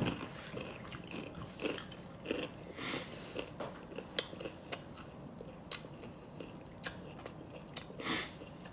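A person biting and chewing crusty homemade French bread, the hard crust crunching in irregular sharp crackles.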